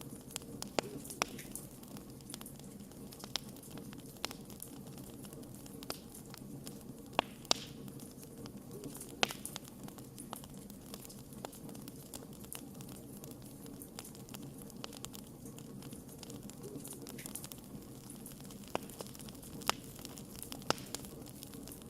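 Wood fire in a fireplace crackling: irregular sharp pops, a few of them louder, over a steady low rush of the burning logs.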